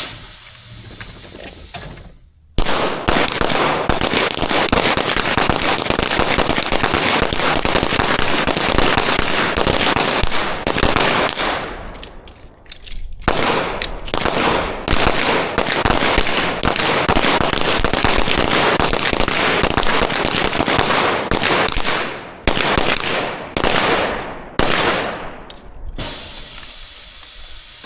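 Rapid pistol gunfire from a line of shooters firing at once, the shots overlapping into dense volleys. The firing begins about two and a half seconds in, dips briefly near the middle, then thins out to scattered last shots near the end. This is a 12-round, 25-second timed course of fire.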